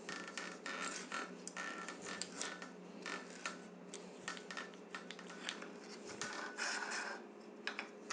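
Light, irregular clicks and scrapes of small metal bike parts and tools being handled while a brake lever and thumb shifter are fitted onto a handlebar. A faint steady hum runs underneath.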